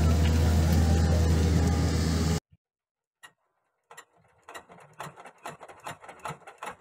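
24 HP diesel engine driving a 10-inch axial-flow pump, running steadily, then cut off abruptly about a third of the way in. After a second of silence come irregular mechanical clicks and knocks that grow denser toward the end.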